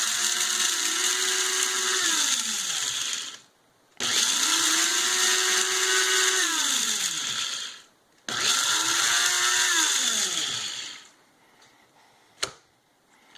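Electric blade coffee grinder grinding whole black peppercorns in three pulses of about three to four seconds each; the motor's whine climbs as it spins up and falls away as it coasts down after each pulse. A single sharp click near the end.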